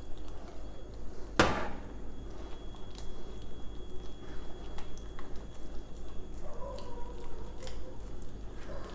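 Egg-and-flour batter with ice water being stirred in a bowl: uneven wet squishing and sloshing, with one sharp knock about a second and a half in.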